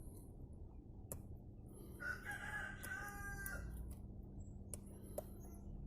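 One drawn-out animal call about two seconds in, lasting about a second and a half, with a few faint clicks before and after it and a steady low hum underneath.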